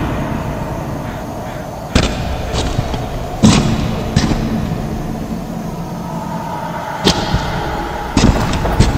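About six sharp bangs at uneven intervals, the loudest about three and a half seconds in, over a steady low rumble.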